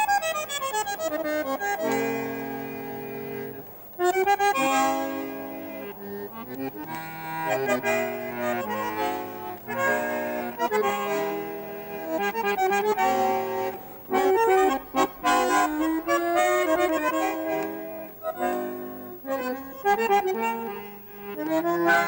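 Instrumental music: a melody moving over held chords, with no voice.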